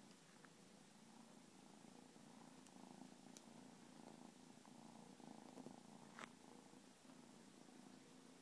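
Bengal kitten purring faintly and steadily, a low, pulsing purr. A light click about six seconds in.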